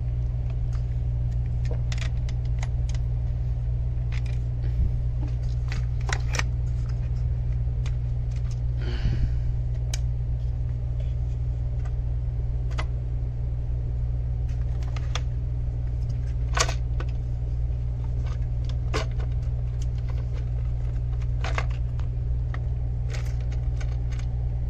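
Scattered light metallic clicks and taps, with a brief scrape about nine seconds in, as the camshaft bridge is worked loose from a 2.0 TFSI cylinder head, over a steady low hum.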